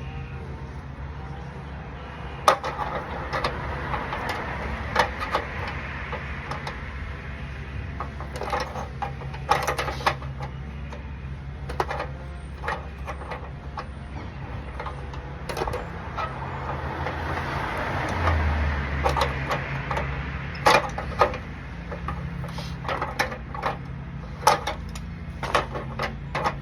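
Hand tools clanking and knocking on the metal of an air conditioner as a rusted compressor is worked loose, in irregular sharp knocks and clicks over a steady low hum.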